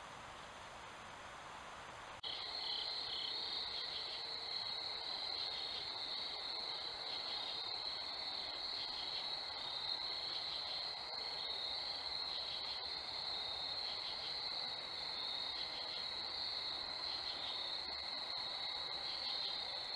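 Crickets trilling in a steady night chorus, a continuous high-pitched trill with a fine pulsing and a fainter lower steady tone beneath it. It begins abruptly about two seconds in, after faint background hiss.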